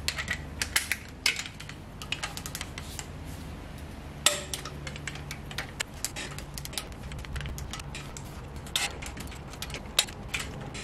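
Torque wrench ratcheting in short runs of clicks, with metallic clinks of the socket on the bolts, as the exhaust manifold bolts of a 7.3 IDI diesel are tightened to 35 foot-pounds. A sharper metallic click with a brief ring comes about four seconds in.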